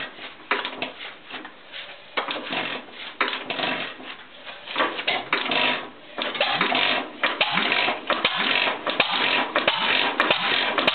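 Japy type M 5 hp single-cylinder stationary engine being turned over by hand at its flywheel, its valve gear giving irregular clanks and clicks. From about six seconds in the clicks come faster and more even as the engine catches and starts to run.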